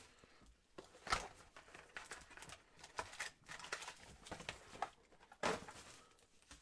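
Rustling and crinkling of trading-card pack wrappers and box packaging being handled and opened, with several sharp clicks and taps, the loudest about a second in and again near the end.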